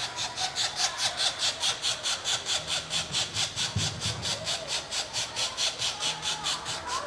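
High-pitched pulsed chirping from calling wildlife, about six pulses a second, with fainter wavering calls underneath.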